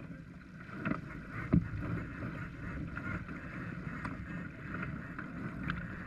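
Racing sportsboat under sail: steady wind noise on the microphone and water rushing along the hull, with two sharp knocks from crew and gear on deck in the first two seconds, the second the loudest.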